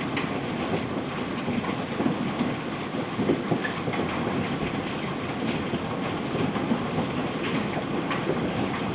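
Heavy hail falling with rain on pavement and grass, a dense steady clatter of many small impacts.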